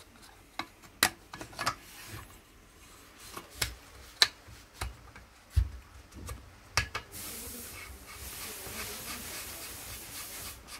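Moderator being fitted to an air rifle's barrel by hand: scattered light clicks and knocks of metal parts, then from about seven seconds in a steady dry rubbing as it is twisted on.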